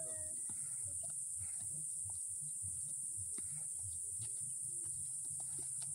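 Steady high-pitched drone of forest insects, with faint scuffs of footsteps on a dirt trail scattered through it.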